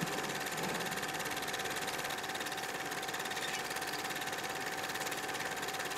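Vintage film projector sound effect: a fast, even mechanical clatter with a steady hum.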